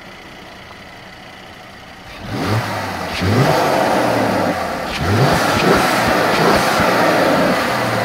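Mercedes-Benz CLS 400's 3.0-litre twin-turbo V6 idling, then revved in several quick blips from about two seconds in, heard at the open engine bay.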